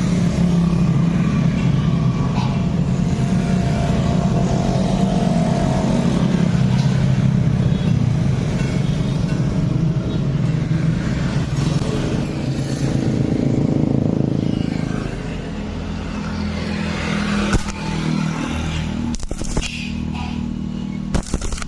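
Stick (MMA) welding arc crackling and sizzling steadily, with a steady low hum underneath. The sound eases about fifteen seconds in, and a few sharp clicks come near the end.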